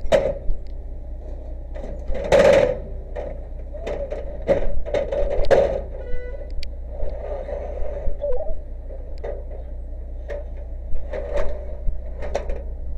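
A series of irregular knocks and clattering noises over a steady hum, a loud burst about two and a half seconds in and a cluster a few seconds later.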